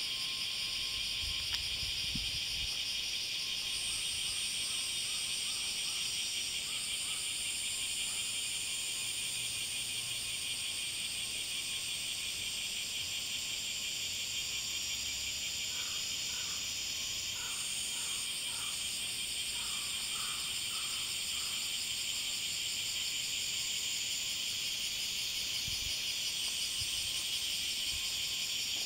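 Steady chorus of insects buzzing in two high-pitched layers that come and go, with a few faint short chirps about halfway through.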